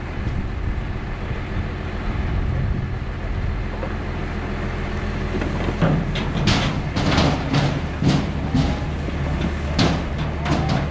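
An engine running steadily at a low pitch. About six seconds in, it is joined by an irregular run of sharp clanks and knocks, roughly two a second, which are the loudest sounds.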